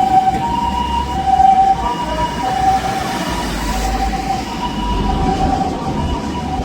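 Japanese ambulance's TCD electronic siren sounding its two-tone hi-lo call, a high note and a low note alternating about every two-thirds of a second. A low vehicle rumble runs underneath.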